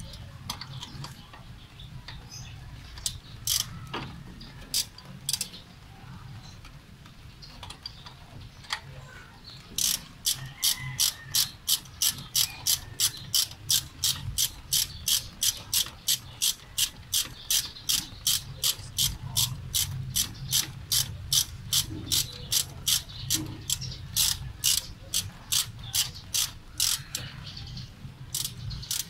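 Ratchet wrench clicking as a bolt on the engine is turned: a few scattered clicks at first, then from about a third of the way in a long, even run of about two to three clicks a second.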